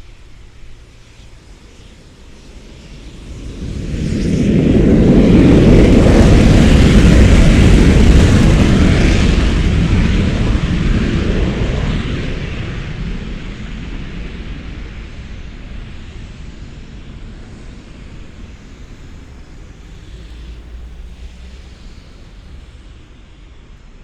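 Jet aircraft making a low flypast. The roar builds quickly a few seconds in, stays very loud for several seconds, then fades slowly as the aircraft goes away.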